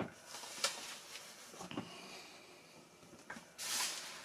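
Handling noises of an unboxing: a few light knocks and taps as a foam model-aircraft wing is set down, then a brief rustle near the end as a hand reaches into the cardboard box.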